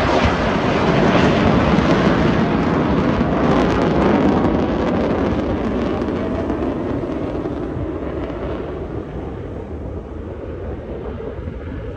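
F-35 fighter jet's engine noise as it flies overhead, a loud steady rumble that fades gradually over the second half as the jet moves away.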